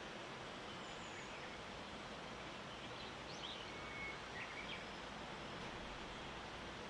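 Steady, faint outdoor background hiss with a few short, thin bird chirps clustered in the middle.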